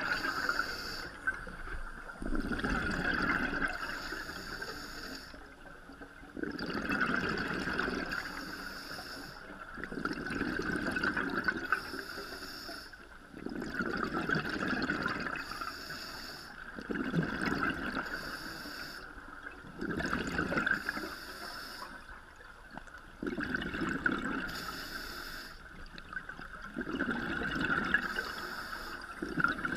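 Scuba breathing heard underwater through the camera housing: a regulator hiss on each inhale alternating with a louder gush of exhaled bubbles, about one breath every three and a half seconds.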